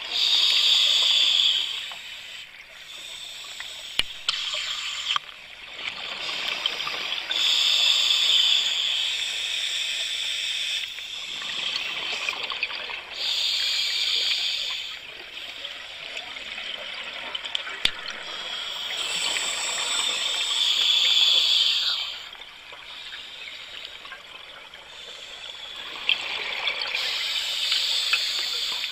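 Scuba diver breathing through a regulator underwater: a bubbling rush of exhaled air about every six seconds, five times, with quieter hiss between the breaths.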